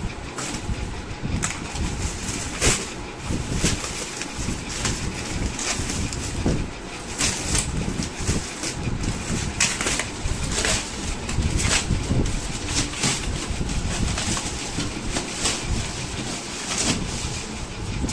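Irregular handling noise: many sharp clicks and rustles over a low, uneven rumble.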